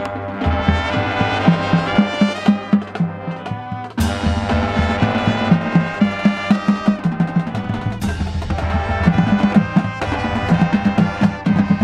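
Marching band playing: brass over drums with a steady, quick beat, with fresh loud entries about four and eight seconds in.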